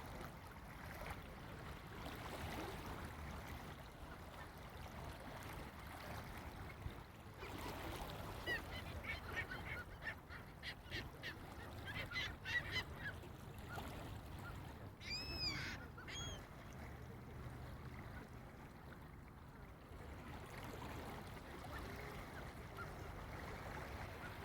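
Juvenile gulls giving high-pitched chirping calls: a run of short, quickly repeated chirps about a third of the way in, then a longer, clearer call just past the middle, over faint steady background noise.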